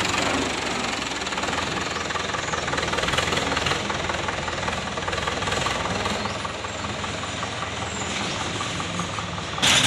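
Mahindra 275 DI tractor's three-cylinder diesel engine running steadily as it pulls a soil-laden trailer at low speed.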